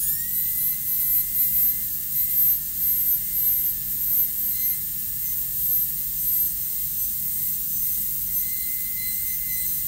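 High-speed air-turbine dental handpiece spinning up to speed and then running with a steady high whine and hiss while its bur cuts the occlusal isthmus of a maxillary first molar cavity preparation.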